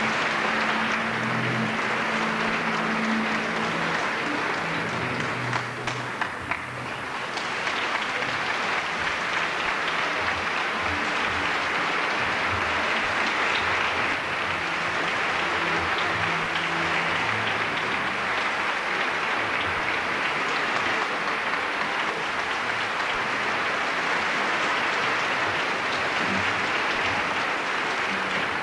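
Concert audience applauding steadily, with a brief dip in the clapping about six seconds in.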